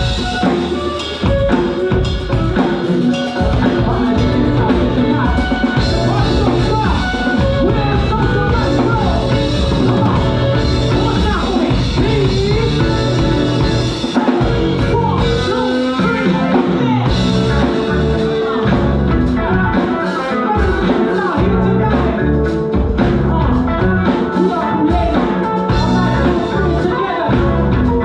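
Live music: a violin playing a melody over a backing track from a DJ's decks with a steady drum beat, and a woman singing into a microphone.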